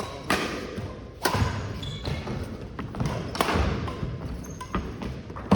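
Badminton rally: sharp racket strikes on the shuttlecock about once a second, mixed with heavy thuds of players' feet landing and lunging on the court.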